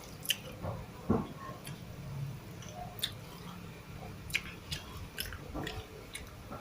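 A person chewing a mouthful of rice and canned sardines, with scattered short clicks and smacks through the chewing.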